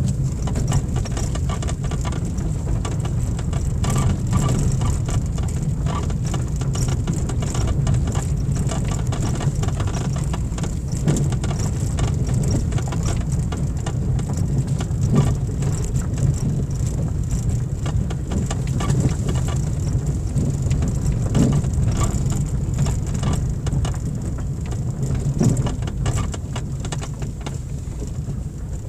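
Car driving along a loose gravel dirt track, heard from inside the cabin: a steady low rumble of engine and tyres, with many scattered clicks and ticks of grit and small stones under the tyres.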